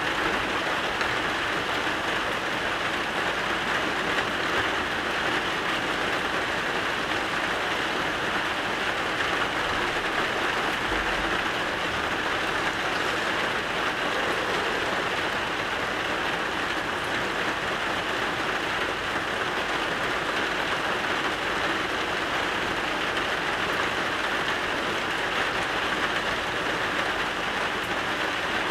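Steady rain falling, an even unbroken hiss with no breaks or gusts.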